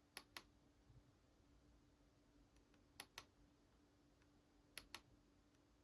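Computer mouse clicking quietly: three quick pairs of clicks, about two seconds apart, over a faint steady hum and otherwise near silence.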